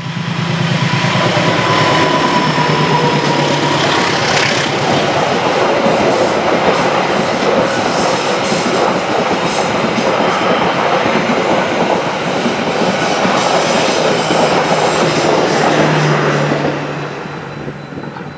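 A CC204 diesel-electric locomotive and its passenger coaches pass at speed, with engine drone and wheels clattering on the rails, a dense, loud rumble that fades near the end as the last coach goes by.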